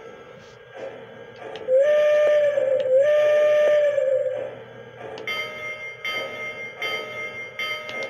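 Model train set's sound effects: two long whistle blasts close together about two seconds in, then a bell ringing over and over, roughly once every three-quarters of a second, over a steady hum from the running train.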